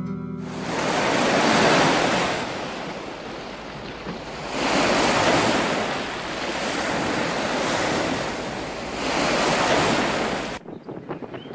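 Strong wind rushing in three swelling gusts, cutting off abruptly near the end, followed by a few faint bird chirps.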